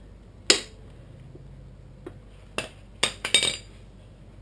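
Sharp metallic clinks of hand tools and rear-axle hardware on a Yamaha TW200: one about half a second in, a lighter one near the middle, then a quick run of several clinks around the three-second mark.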